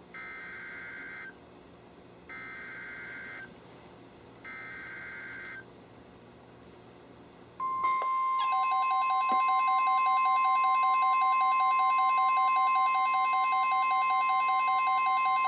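NOAA Weather Radio Emergency Alert System tones: three one-second bursts of the SAME digital header, then after a pause the steady 1050 Hz warning alarm tone. About a second after the tone starts, the weather radio receivers' own alarms join it, one of them pulsing rapidly.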